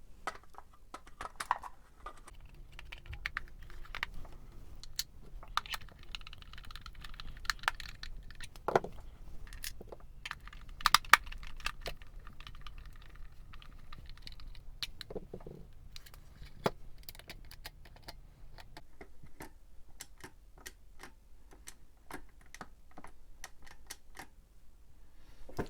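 Plastic clicks and taps from a TRS-80 Deluxe Joystick being handled and worked after its internal spring piece was reattached, with a quicker, even run of clicks near the end. A faint low hum sits under the first two-thirds.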